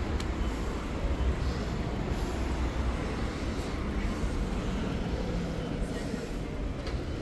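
Steady street traffic rumble, an even low drone of passing vehicles without sharp events.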